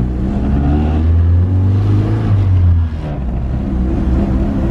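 A manual Honda minivan's engine pulls under acceleration, heard from inside the cabin, its note rising steadily. Just before three seconds in it drops suddenly as the driver shifts up, then carries on at a lower pitch.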